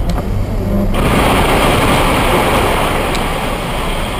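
Car on a wet road, heard from inside the cabin: a low engine hum at first, then a loud, steady rushing hiss that sets in suddenly about a second in and holds.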